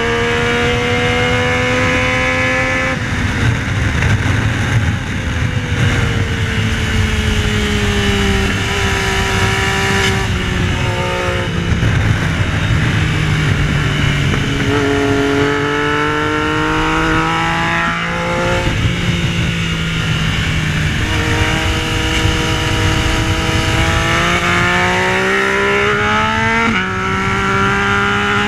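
Yamaha Tracer 900's 847 cc three-cylinder engine ridden hard on a track: its pitch climbs under acceleration and drops sharply at each upshift, and it falls away in stretches of slowing. A steady rush of wind noise runs under the engine.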